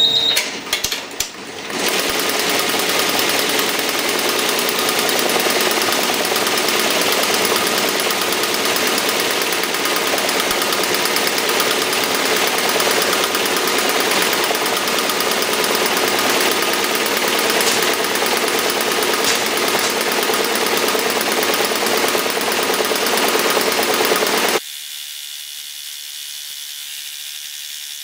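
Multi-needle embroidery machine stitching into a baseball cap: a fast, dense, steady rattle of needle strokes after a few irregular clicks at the start. Near the end it cuts off abruptly to a much quieter steady sound.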